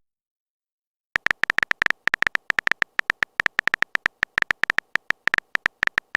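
Phone keyboard typing sound effect: a quick, uneven run of short clicks that starts about a second in and keeps going.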